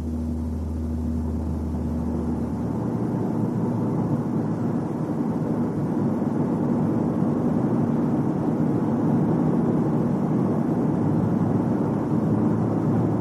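Car interior noise at road speed: a steady low hum, then a rumble that slowly grows louder as the car speeds up. It is a booming drone that comes in around 80 km/h and peaks at 90 km/h, most likely caused by an unbalanced or out-of-true propeller shaft.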